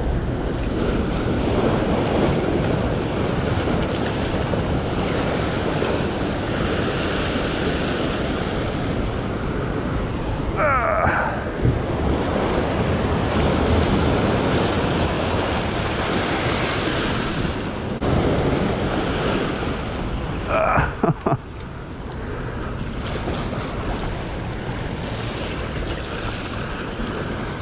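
Sea surging and washing over the rocks of a breakwall, with wind buffeting the microphone. Brief knocks and a short wavering squeal come about halfway through and again about three-quarters of the way in.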